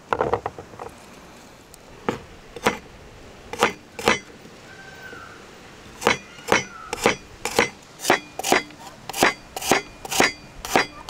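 Large chef's knife chopping garlic cloves on a wooden cutting board: a few scattered cuts, then steady chopping at about two strokes a second from about halfway in.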